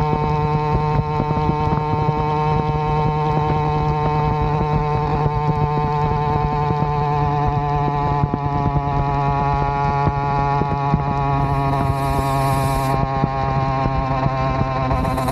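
Avenger 85 two-stroke motorized-bicycle engine with a Nibbi PE19 carburetor and a welded, patched Gomax expansion-chamber exhaust, running under way at a steady pitch, with wind rumble on the microphone.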